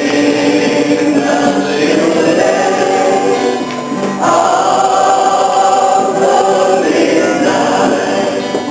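Several voices singing a gospel song together, holding long notes, with a new phrase starting about four seconds in.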